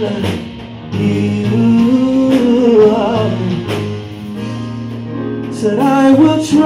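Live gospel song: a male singer holds long sung notes with vibrato over band accompaniment, sliding up into a higher note near the end.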